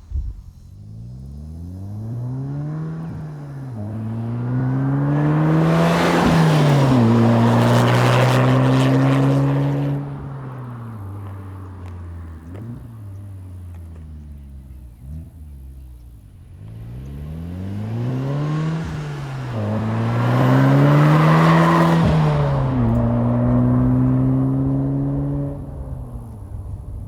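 Volkswagen Golf R's turbocharged 2.0-litre four-cylinder through an AWE SwitchPath cat-back exhaust, accelerating through the gears twice. Each time the pitch climbs and drops at two upshifts, then settles into a steady drone as the car goes past, growing louder and then fading.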